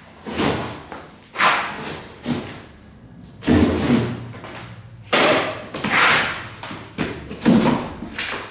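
Cardboard box being handled and opened by hand: a series of short scraping rasps and thumps as the packing tape is pulled off and the flaps are opened.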